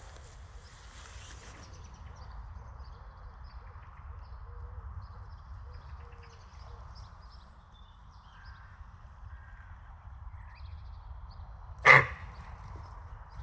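Steady low rumble of wind with faint, scattered high chirps, broken once near the end by a single short, sharp, loud sound.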